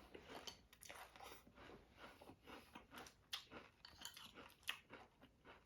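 Faint, irregular crunching of a person chewing a mouthful of Wheaties wheat-flake cereal.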